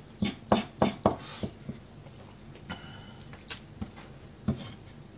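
Kitchen knife chopping through hatahata (sandfish) on a plastic cutting board: a quick run of five or six knocks in the first second and a half, then a few sparser, quieter knocks as the wet fish are handled.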